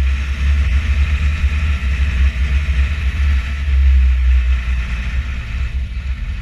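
Fendt 512 TurboShift tractor heard from inside its cab while driving: a steady deep engine rumble with a steady higher whine above it.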